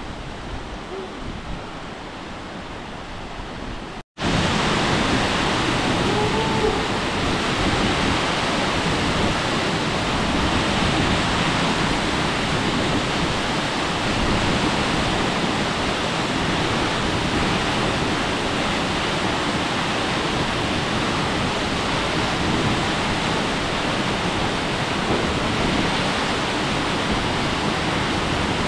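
Steady, loud rushing noise with no pitch. It starts abruptly after a brief dropout about four seconds in, and before that a quieter hiss of the same kind runs.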